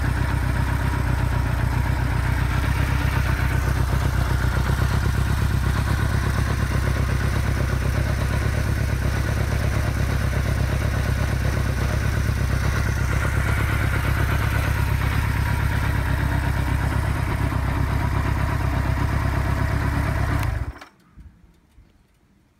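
Kawasaki Z1 900's air-cooled 903 cc inline-four idling steadily, then stopping abruptly near the end.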